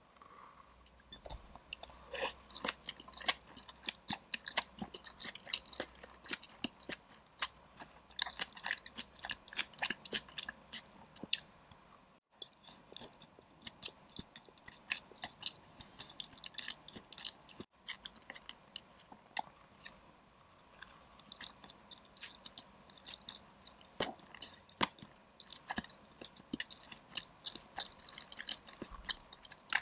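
Close-miked chewing and crunching of spicy dry pot, with many small crisp mouth clicks. The sound cuts off briefly twice, about twelve and eighteen seconds in.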